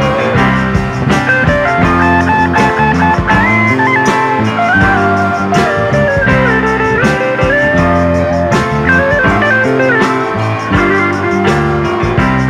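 Instrumental break of a 1970s rock band recording: a lead guitar plays a melody of gliding, bending notes over bass, rhythm instruments and a steady drum beat.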